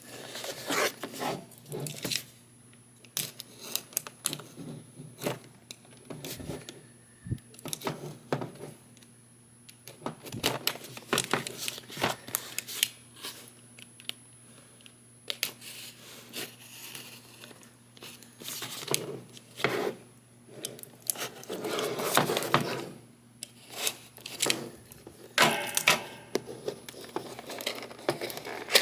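A cardboard transport box being opened and unpacked by hand: irregular tearing, rustling and scraping with sharp clicks and knocks, busiest a little past the middle.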